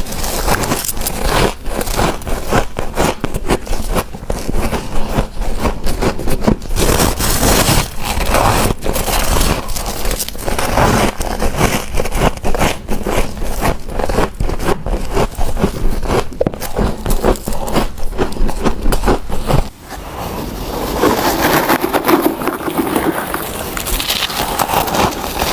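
Close-miked crunching of freezer frost being bitten and chewed, a dense run of crisp crackles. It breaks off briefly about twenty seconds in, then goes on with a softer, less crackly texture.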